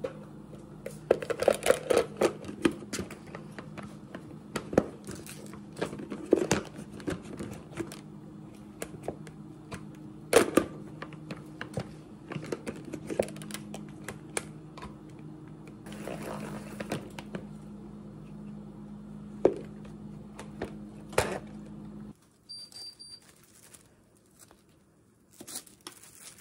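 Kitchen prep handling sounds: irregular clicks and knocks of plastic and utensils on a cutting board and a plastic salad spinner, over a steady low hum that stops near the end.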